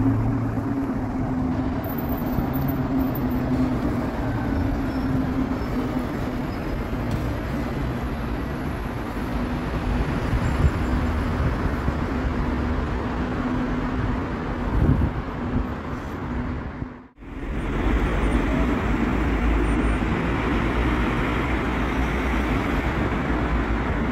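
Road traffic: cars and a city bus driving along the street, with a steady engine hum. About seventeen seconds in, the sound dips out abruptly, then the traffic noise resumes.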